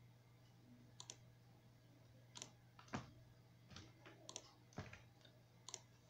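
Faint computer mouse clicks, about nine of them spread across a few seconds, some in quick pairs, over a steady low electrical hum.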